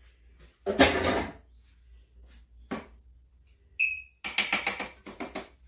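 Hard plastic kitchenware being handled: a clatter about a second in, a brief squeak, then a quick run of sharp plastic clicks near the end as the lid of a small plastic food chopper is worked off.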